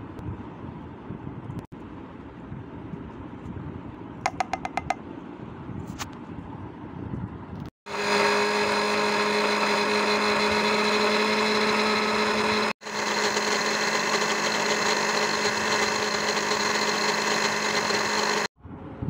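Electric mixer grinder grinding sliced onion and green chilli into a paste. Its motor runs with a loud, steady hum for about five seconds, cuts off sharply, then runs again for about six seconds. Before it starts there is a quick run of light clicks.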